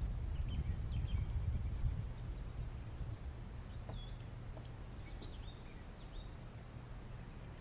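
Quiet open-air ambience: a low, uneven rumble that slowly fades, with a few short, faint bird chirps scattered through it.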